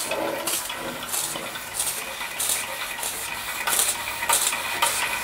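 Weeden No. 49 model steam engine running under steam, its exhaust puffing out in hissing bursts in a loose rhythm, a little under two a second, over a faint low hum.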